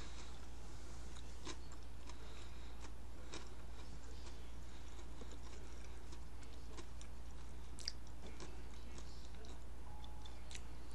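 Person chewing a fish taco in a flour tortilla, with small wet mouth clicks and smacks scattered through, over a steady low hum.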